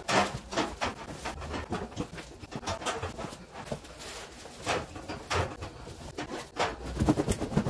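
Cotton fabric rustling and swishing in irregular strokes as a large body pillow is worked into its pillowcase, with a few soft thumps near the end.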